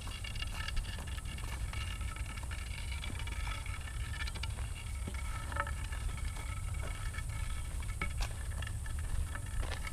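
Outdoor ambience on a swamp trail: a steady low rumble of wind or movement on the microphone, with scattered small ticks and crackles.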